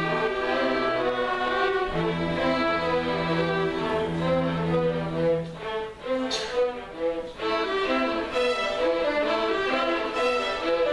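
String music with violins and cellos playing sustained notes over a held bass line, briefly thinning out about six seconds in before continuing.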